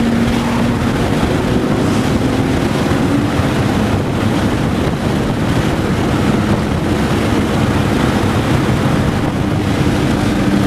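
Inside the cabin of a Porsche lapping a race track: a steady engine drone under heavy wind and road noise. The engine note fades back a few seconds in and comes up again near the end.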